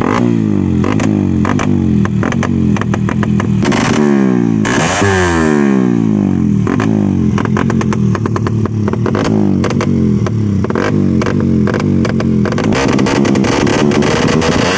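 Suzuki Satria FU motorcycle with a ported head and an RMC aftermarket exhaust, running loud with the engine pitch rising and falling several times as it is revved.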